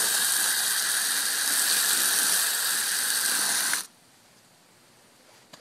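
Garden hose spraying a steady hissing jet of water onto freshly pulled carrots and turnips on the soil, washing the dirt off; the spray cuts off suddenly nearly four seconds in.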